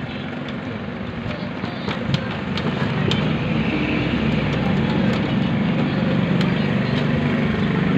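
Steady low engine-like rumble that grows louder about three seconds in, with scattered light clicks and taps as the desktop PC's drive cage and cables are handled.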